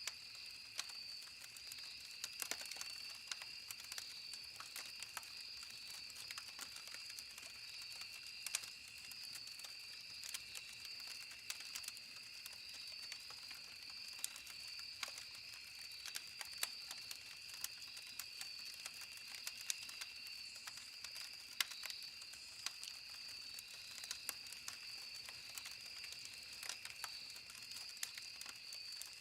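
Campfire wood crackling and popping in irregular sharp snaps over a faint hiss, with a steady high-pitched whine underneath.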